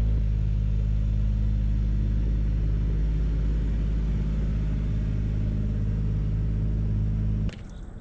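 An engine running steadily at a constant speed, a low, even hum that cuts off suddenly near the end.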